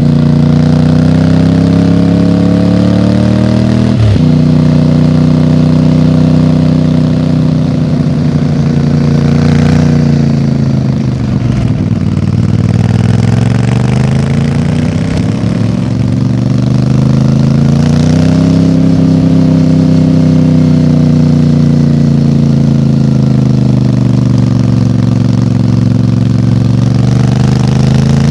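CFMOTO 450MT motorcycle's parallel-twin engine and exhaust running continuously. The pitch dips briefly about four seconds in, sinks slowly around ten to twelve seconds in, then rises again by about eighteen seconds and holds steady.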